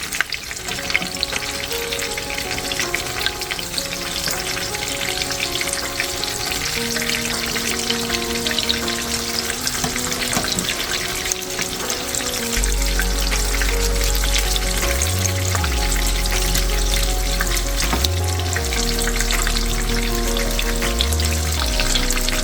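Boneless chicken frying in hot oil, a steady sizzle and crackle. Background music plays over it, with a deep bass line coming in about halfway.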